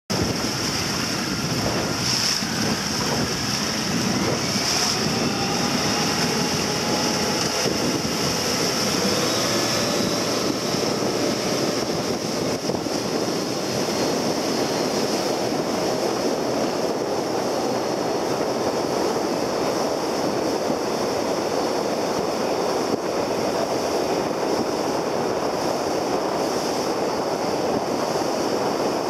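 Rigid inflatable boat running at speed on open sea: steady outboard motor noise, with water rushing along the hull and wind buffeting the microphone.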